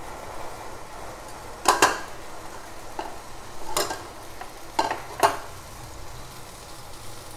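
Metal spatula scraping and clinking against a steel wok over cubed eggplant simmering in tamarind water: a handful of sharp strokes, a double one about two seconds in and three more between about four and five and a half seconds, over a steady low sizzle.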